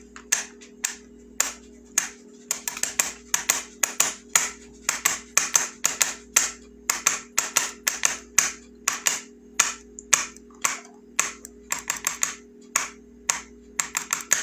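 A run of sharp, irregular clicks or taps, about two to three a second, over a steady low electrical hum.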